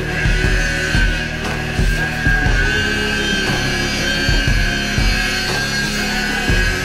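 Rock music with a steady, heavy drum beat.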